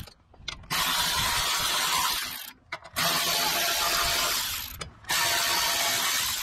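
Cordless electric ratchet running in three bursts of about one and a half to two seconds each, with short pauses between, spinning bolts out of a small engine's sheet-metal air-cleaner cover.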